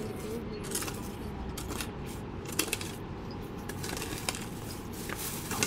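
Scattered light clicks and small taps at irregular intervals over a steady background hum.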